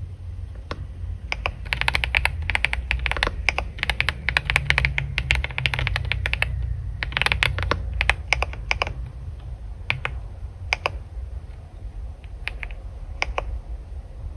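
Typing on a computer keyboard: quick runs of key clicks, thinning to a few scattered keystrokes in the last few seconds, over a low steady hum.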